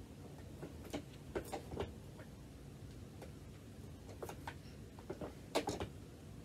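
Scattered faint clicks and taps from a Dirt Devil Breeze upright vacuum being handled and footed at its base while its motor is off, with a sharper pair of clicks about five and a half seconds in.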